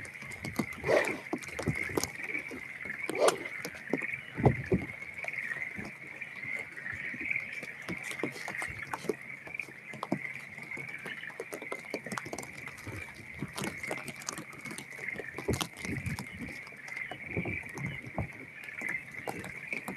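Rain falling, with many small drops ticking sharply close to the microphone and a few heavier knocks in the first five seconds, over a steady high-pitched hum.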